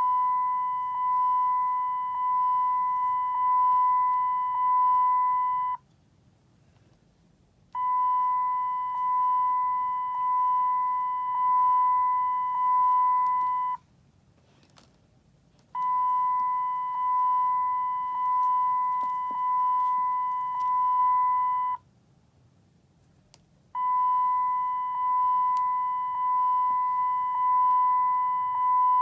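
Volkswagen Routan seatbelt reminder chime: a single high electronic beep tone that pulses about once a second, each pulse fading slightly before the next. It sounds in bursts of about six seconds with roughly two-second pauses between them, four bursts in all. This is the warning that a seatbelt is unbuckled.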